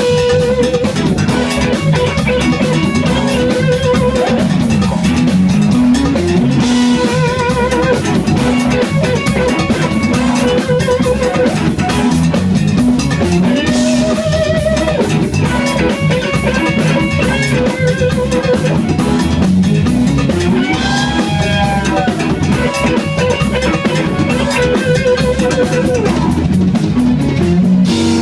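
Funk-rock band playing live: electric guitar lead with wavering held notes and bends over bass guitar and a drum kit keeping a steady cymbal beat.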